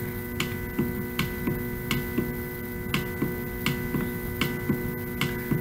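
Steady electrical hum made of several held tones, with faint regular ticking, about three ticks a second.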